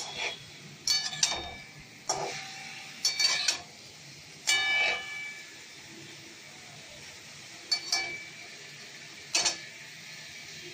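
Metal spatula knocking and scraping against a metal kadai as vegetables are stir-fried: about eight short ringing clinks at irregular intervals, a second or so apart.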